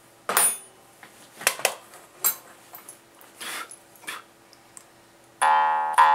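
A few short hissy noises, then about five and a half seconds in a jaw harp starts to play: a loud, steady twanging drone whose bright overtones shift up and down as the mouth shape changes.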